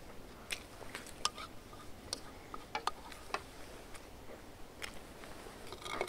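A person chewing food close to the microphone, with scattered sharp little clicks and crackles of biting and chewing.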